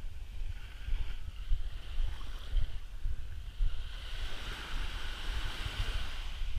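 Wind blowing on the microphone in uneven gusts over the wash of small waves lapping onto a sandy shore. The hiss of the wash swells about four seconds in.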